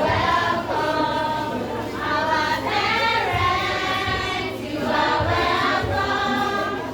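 A group of voices singing a song together in long, held notes.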